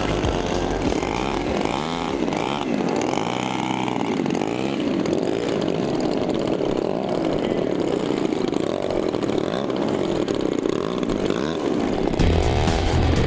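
Several large-scale RC warbird model engines running together, their pitch rising and falling as they rev up and down.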